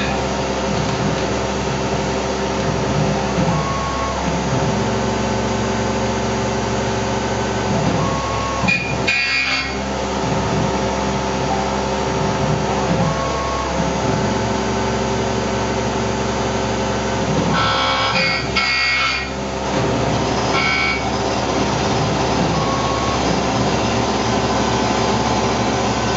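Tormach PCNC 1100 spindle turning a carbide end mill through 6061 aluminium, pushed at a fast feed. The cutting tone drops out and comes back every few seconds as the tool finishes one pass and starts the next, with a few short hissy bursts.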